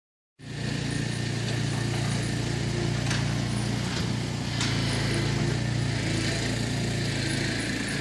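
Motor of a retractable garage door screen running steadily with a low hum as the screen rolls down, with a couple of faint clicks midway.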